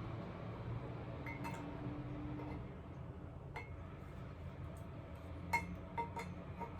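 Parts of a flat-pack IKEA cart clinking together as they are handled during assembly. Sharp clinks with a short ring come about a second in and again near the middle, then four close together near the end, over a steady low hum.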